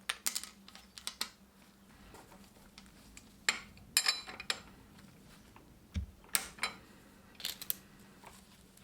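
Metal gearbox parts and tools clinking and tapping against each other as they are handled, in short clusters of sharp clicks, with a dull knock about six seconds in.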